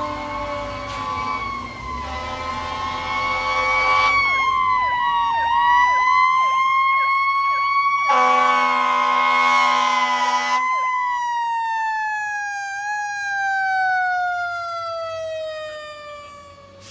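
Fire truck sirens wailing, with a second, rapidly sweeping siren joining about four seconds in and a long air-horn blast from about eight to eleven seconds in. After the horn the siren's pitch falls slowly as the fire engine draws near and passes.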